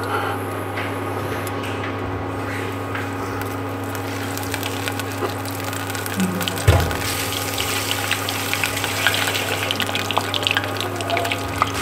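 Steady electrical hum from an induction cooktop. Just past halfway a breaded chicken drumstick goes into the hot oil with a thump, and the oil starts sizzling and crackling around it as it deep-fries.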